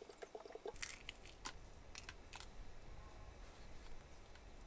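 Faint camp-kitchen handling: a short gurgle of milk poured from a carton at the start, then a few sharp clicks and taps of cups and utensils over a low rumble.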